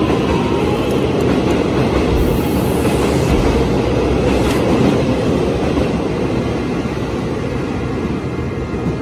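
Taiwan Railway electric multiple-unit local train departing, its wheels and running gear rumbling steadily along the platform as the cars pass close by, fading gradually over the last few seconds as the tail of the train pulls away.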